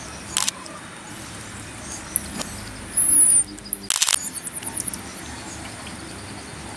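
Marmosets calling: a short, high whistle-like call about three seconds in, then a sharp click and a quick run of high chirps. A few other sharp clicks come and go.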